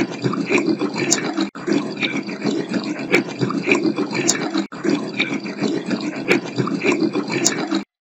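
Running tap water passed through AI noise-cancellation software, leaving choppy, garbled noise in which the uploader hears the spirit words 'Grant should hold it, let's maintain the visit'. The same roughly three-second clip plays three times in a row, with a sharp break between plays.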